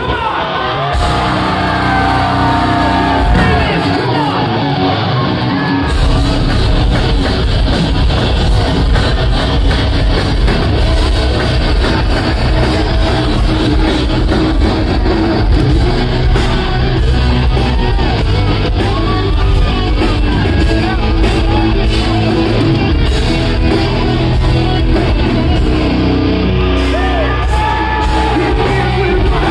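Live hard rock band playing loudly in a large hall: distorted electric guitars, bass and drums with a singer's voice over them. The deep bass drops out for a moment and comes back in hard about six seconds in.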